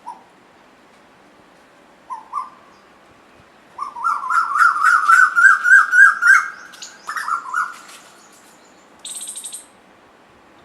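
Asian koel calling: a couple of short notes, then a loud, fast run of rising notes, about four a second, that creeps upward in pitch for several seconds. A brief high, rapid rattle follows near the end.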